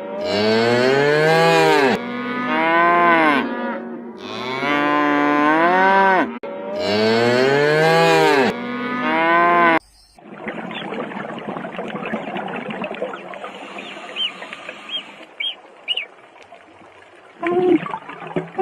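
Cow mooing: about three long, loud moos in the first ten seconds, each rising and falling in pitch, followed by quieter outdoor background noise with a few faint high chirps.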